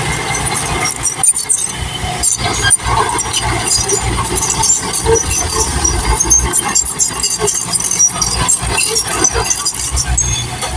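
A machine's motor running steadily, with many scattered clicks and clatters over it.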